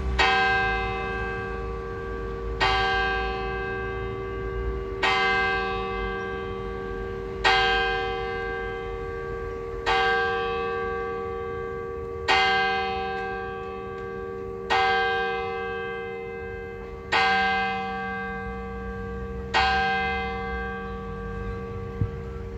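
Bridlington Town Hall clock bell striking eleven o'clock: nine single strokes about two and a half seconds apart, each ringing on and fading before the next.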